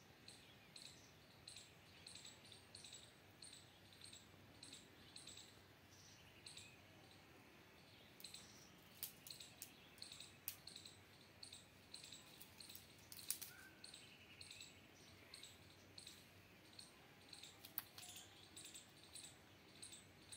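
Faint, high chirps repeating about twice a second, with a few sharp clicks in the middle and one more near the end.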